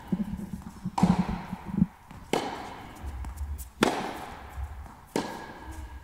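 Tennis ball struck back and forth in a baseline rally: four sharp racket hits about a second and a half apart, each ringing briefly in an indoor tennis hall.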